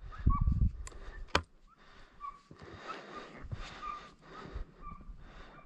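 Hunting hounds giving short yelps, roughly one a second, over a steady hiss. Low rumbling thumps of wind or mic handling come in the first moment, and a sharp click comes just over a second in.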